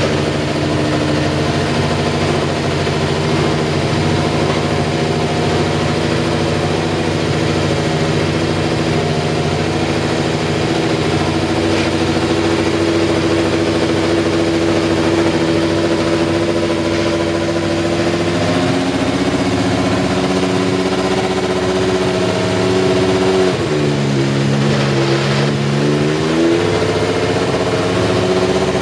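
McLaren Honda MP4/4's RA168E 1.5-litre turbocharged V6 running at a steady idle. The idle note shifts about two-thirds of the way in, and about three-quarters through the revs sag briefly and pick back up.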